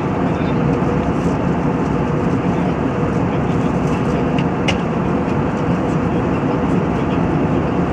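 Airliner cabin noise in flight, from a seat beside the wing-mounted turbofan engine: a steady rush of engine and airflow with a faint steady hum. A single brief click sounds a little past the middle.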